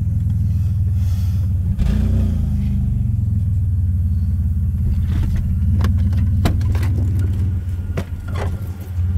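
Off-road vehicle engine running with a steady low drone, its pitch rising and falling slightly about two seconds in. From about five seconds in, a string of sharp knocks and rattles sounds over it.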